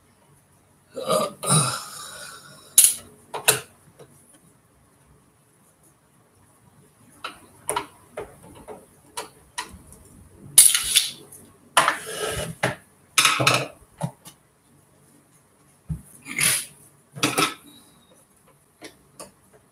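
Irregular clicks, scrapes and clattering knocks of a screwdriver and the plastic housing of a Singer sewing machine being handled and taken apart on a table. They come in short clusters with quieter gaps between.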